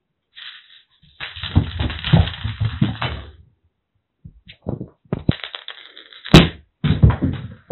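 Kitten running and pouncing on the floor: irregular clusters of paw thuds and scrabbles, with one sharp click a little over six seconds in.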